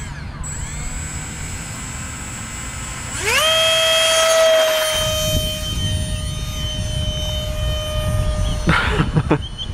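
Radio-controlled model F-16 jet's motor whining steadily at low throttle, then spooling up with a quick rise in pitch about three seconds in and holding full power for the takeoff roll and climb-out. Near the end the whine wavers and bends in pitch.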